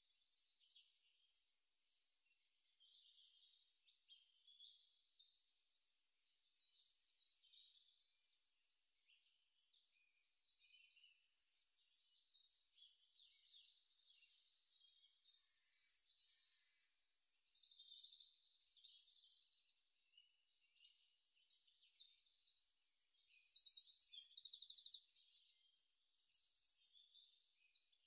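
Small birds chirping and twittering, with quick trills of rapidly repeated high notes; the calling gets busier and louder in the last third.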